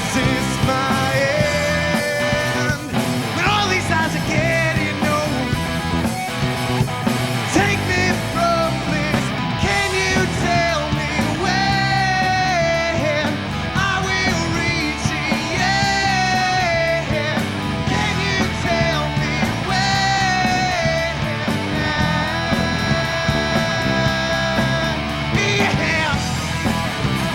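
A rock band playing a song live, with electric guitars, bass and drums keeping a steady beat and a melodic lead line winding over them.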